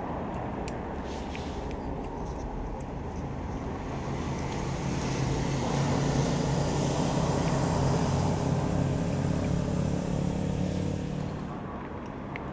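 A motor vehicle drives past over a steady rumble of street traffic. Its engine swells in a few seconds in and fades away near the end.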